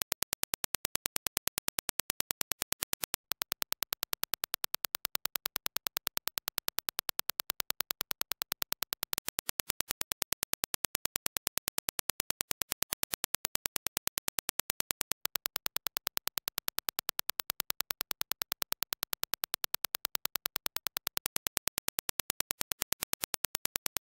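Reference Dirac impulse test signal: a rapid, evenly spaced train of sharp, identical clicks.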